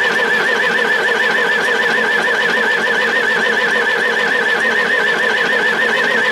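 Volvo BM 642 wheel loader running just after a cold start, having stood unstarted for four to five months. A loud, steady high-pitched squeal warbles up and down several times a second over the engine.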